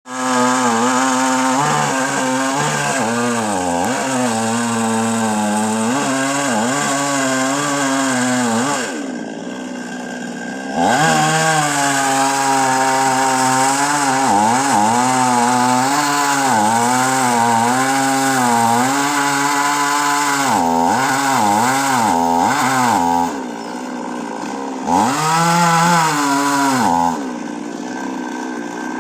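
Chainsaw running at high revs while cutting a tree, its pitch repeatedly dipping and recovering as the chain bites into the wood. It drops back quieter a few times, around ten seconds in, past twenty seconds and near the end.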